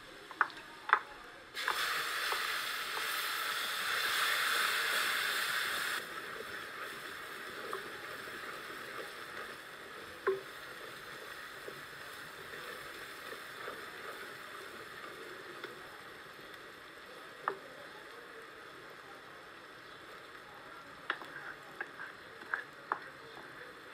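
Hot oil sizzling in a pot over a wood fire. About two seconds in, a loud sizzle lasts about four seconds as ingredients hit the oil. After that a quieter steady sizzle continues, with occasional clicks and taps of a wooden spoon against the pot.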